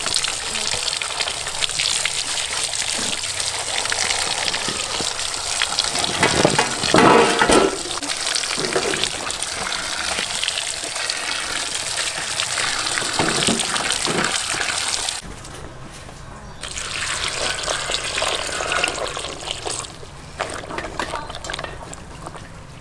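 Water pouring steadily into a metal basin and splashing over cut bitter melon pieces as hands scrub them. The sound drops away briefly about fifteen seconds in, comes back, and is quieter near the end.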